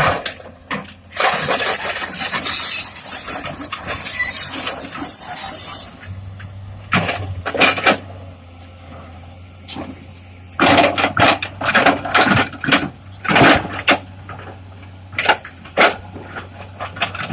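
Rock excavation work on a foundation site: a harsh scraping, grinding noise for about five seconds, then irregular clanks and knocks of tools on rock and metal, over a steady low engine hum.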